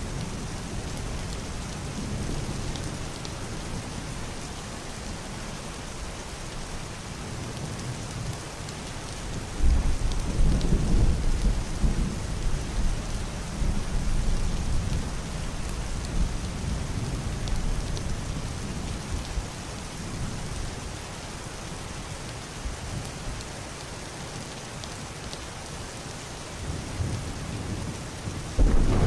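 Heavy rain pattering steadily on a wooden roof and window glass. About ten seconds in, a deep rumble of thunder breaks in suddenly and rolls on for several seconds before fading back under the rain. Another thunder roll begins at the very end.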